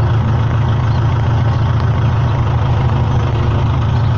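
Farm tractor's diesel engine running steadily as it pulls a cultivator through rows of young corn, hilling soil onto the rows.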